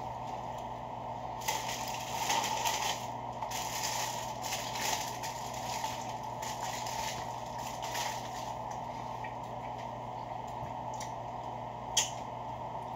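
Paper wrapper of a McDonald's sausage muffin crinkling as it is unwrapped, in several rustling spells over the first eight seconds, then a single sharp click near the end. A steady low hum runs underneath.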